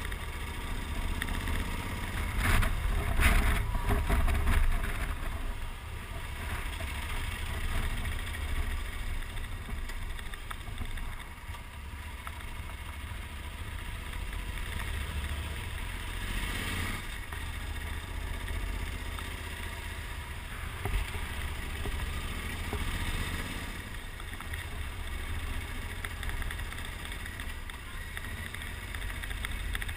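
Onboard sound of a Yamaha XT1200Z Super Ténéré being ridden: the engine running under steady wind rumble on the microphone, swelling briefly a few seconds in.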